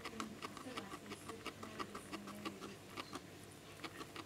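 Guinea pig chewing hay close to the microphone: a steady run of small crisp crunches, about four a second.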